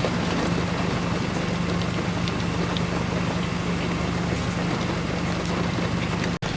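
An engine running steadily with a constant low hum under a rushing noise; the sound cuts out for an instant near the end.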